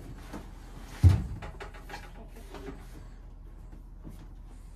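A large race-car body panel being handled, with one loud thump about a second in, then lighter knocks and rustling.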